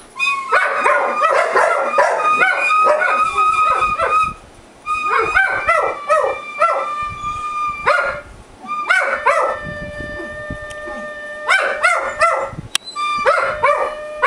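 A dog howling and yipping along to a plastic recorder. The recorder plays steady held notes while the dog's voice rises and falls in short wavering cries over them.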